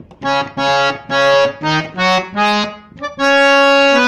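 Harmonium playing a melody line: a string of about six short notes, then one long held note from about three seconds in.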